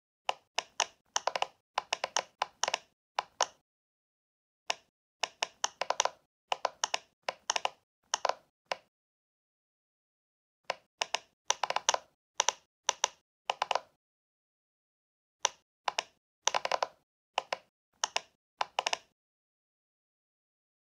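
Rapid sharp clicks or taps in bursts of a second or two, with short pauses between the bursts.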